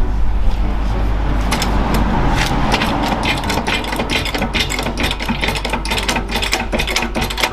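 Rapid mechanical clicking and rattling from a tool's mechanism, building up about one and a half seconds in, over a steady low hum.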